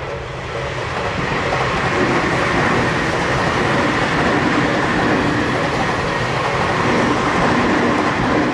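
Tokyu 5000 series electric commuter train running past at speed: a steady rush of wheel and rail noise with a high, even motor whine, building up in the first second or two.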